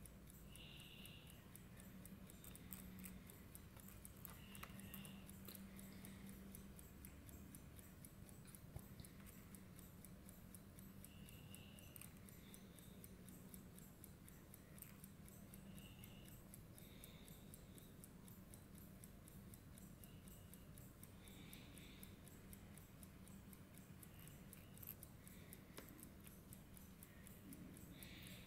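Near silence: room tone with a faint steady hum and faint, fast, even ticking.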